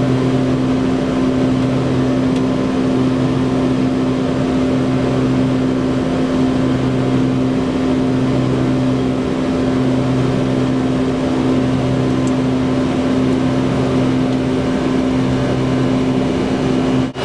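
Boeing 747 flight-deck noise in the climb after takeoff: the engines and airflow make a steady, loud rush with a constant low hum underneath.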